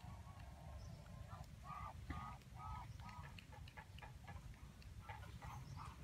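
Animal calls: a run of short repeated calls, a few a second, starting about a second and a half in, over a steady low rumble.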